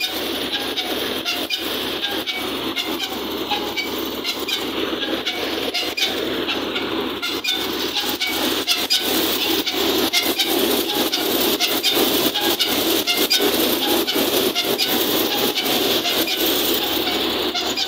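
Tractor-driven wheat thresher running at work, a steady mechanical rumble with a constant rattle of quick clicks, its drive coming from the 50 HP diesel tractor's engine. The running grows a little louder about halfway through.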